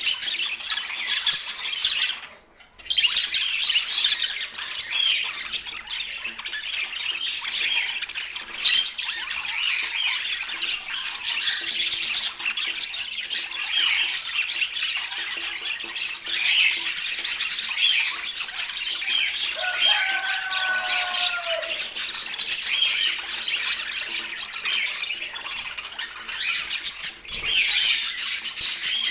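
Budgerigars chattering with squawks and chirps. The chatter runs on without let-up, apart from a brief break about two and a half seconds in, with one lower, sliding call around twenty seconds in.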